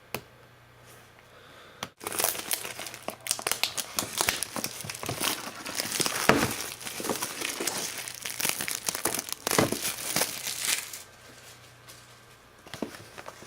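Packaging being handled and opened, crinkling and tearing for several seconds, starting about two seconds in and dying down near the end. There is a single sharp click at the very start.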